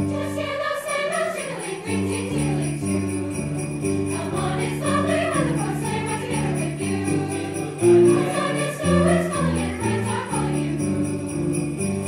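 A mixed choir singing over instrumental accompaniment, with a strap of sleigh bells shaken in a steady beat.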